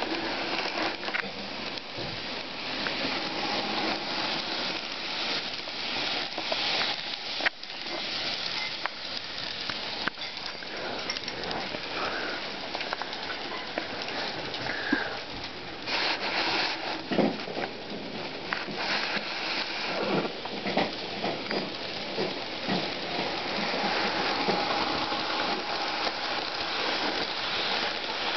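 HO scale model train running on the track: a steady rushing hiss from the locomotive's motor and wheels, with scattered clicks.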